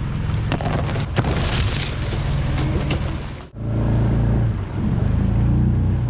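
Small boat's outboard motor running steadily while dry reeds brush and scrape along the boat for the first few seconds. About three and a half seconds in the sound drops out abruptly and the motor comes back louder.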